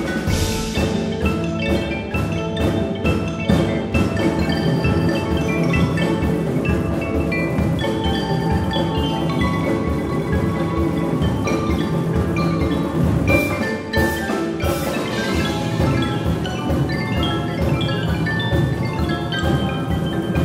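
Percussion ensemble playing: marimbas, vibraphone and xylophone in fast, dense mallet runs over a steady drum pulse, with a few bright crashes about two-thirds through.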